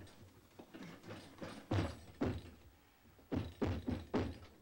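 Lump of sumi ink dough, soot mixed with nikawa animal glue, being kneaded and worked by hand. It gives a series of dull thuds and slaps, about eight, irregularly spaced, with a short pause in the middle.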